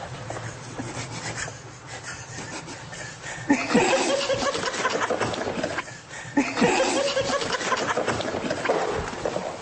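People snickering and trying to hold in laughter, in two loud bursts: one starting about three and a half seconds in, the other about six and a half seconds in.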